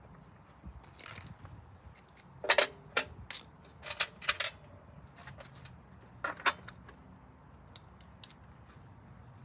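Sharp, irregular clacks and knocks of a lawn mower's plastic gas tank and recoil housing being pressed and seated back onto the overhead-valve engine, in three short clusters, the last a pair.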